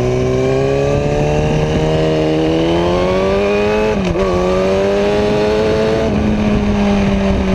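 Motorcycle engine heard from on board while cornering, revs climbing steadily, briefly dipping and picking up again about four seconds in, then easing off near the end, with wind rush over the microphone.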